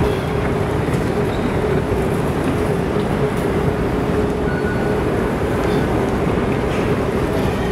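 Airport moving walkway running with a steady rumble and a constant mid-pitched hum.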